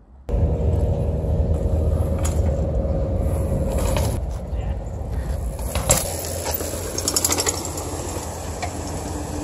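A bicycle being ridden over rock and concrete and down steps: a rumbling rolling noise with rattles and several sharp knocks, the loudest about six seconds in.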